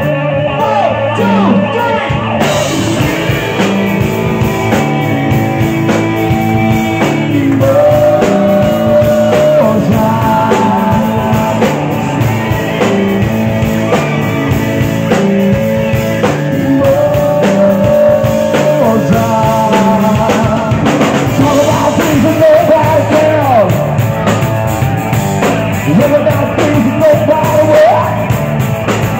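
Live rock band playing loud: electric guitar, bass guitar and drum kit, with a man singing into a microphone over them.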